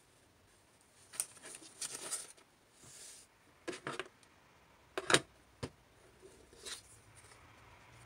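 Scattered light taps, knocks and rustles of craft supplies being handled on a tabletop: yarn, scissors and a cardboard template moved and set down. The sharpest is a knock about five seconds in.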